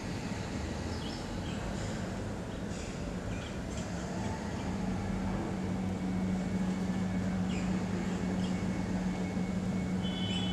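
A steady low rumble and hum that grows stronger about halfway through, with a few faint bird chirps.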